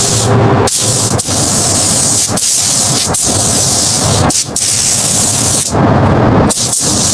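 Loud, steady spraying hiss over a low hum, broken by abrupt cuts about every second.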